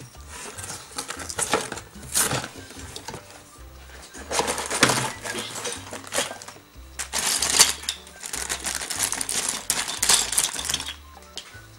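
Toy packaging being handled: a cardboard box opened and plastic bags of small plastic Playmobil pieces crinkling and rattling, in irregular bursts. Background music with a low bass line plays under it.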